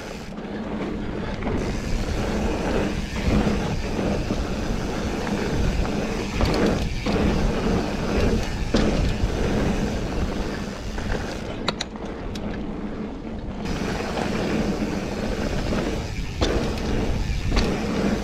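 Mountain bike riding fast down a pebbly singletrack: the tyres rumble and crunch over smooth pebbles, and the bike clatters and knocks over bumps. The noise eases briefly twice.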